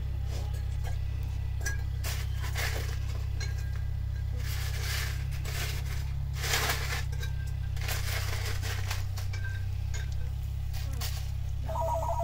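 A Border Collie licking newborn Irish Wolfhound puppies in their fleece bedding: bouts of wet licking and blanket rustling over a steady low hum, with a short pitched squeak near the end.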